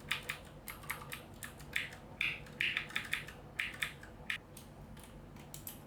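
Logitech G610's Cherry MX Blue mechanical key switches being pressed one after another, a quick irregular run of sharp clicks that thins out near the end.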